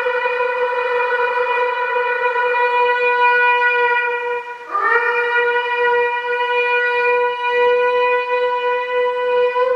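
Shofar blown in two long, steady blasts. The first breaks off about halfway through; the second starts with a quick upward slide into the note and is then held.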